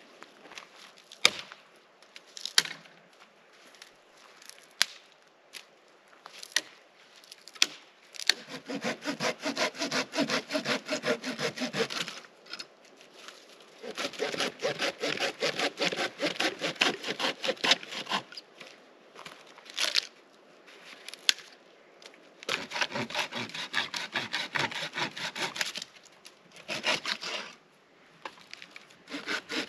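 Hand saw cutting through dry branches in three bouts of quick back-and-forth strokes. Single sharp wooden clicks from the branches being handled come between the bouts.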